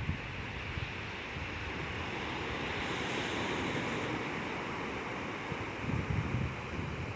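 Sea surf washing steadily, with some wind; a small swell of the waves about six seconds in.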